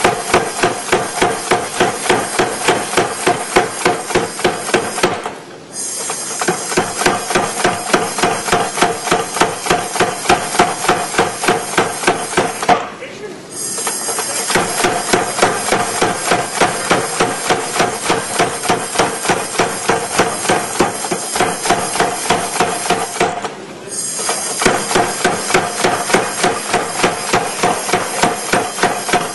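Blacksmith's hammers striking hot steel on an anvil while forging tongs, in a fast, even rhythm with the anvil ringing after each blow. The hammering pauses briefly three times.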